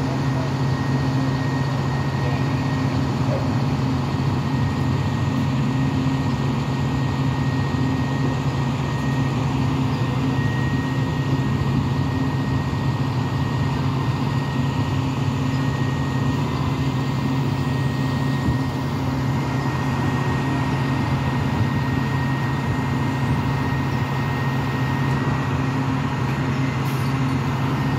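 Utility bucket truck's engine idling steadily, a low even drone that does not change.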